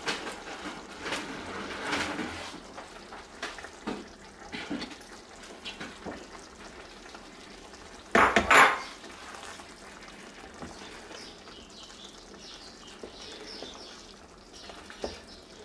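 A spoon and a glass bowl clink and scrape against a nonstick pan as eggs are slid into simmering tomato sauce, with one louder clatter a little past halfway. Between the knocks the sauce sizzles faintly.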